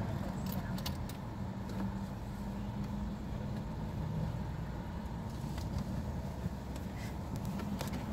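Car engine idling steadily, heard from inside the car, with a few faint clicks about a second in and again near the end.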